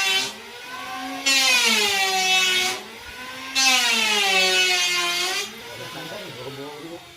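Engine-driven sawmill saw cutting teak wood in three loud bursts. The motor's pitch sags under load during each cut and recovers between them. After the third cut the saw runs on more quietly.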